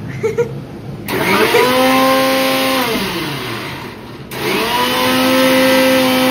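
Electric mixer grinder run in two bursts. It starts about a second in, spins up to a steady high hum, winds down, then starts again just after four seconds. It is grinding a mint and coriander chutney.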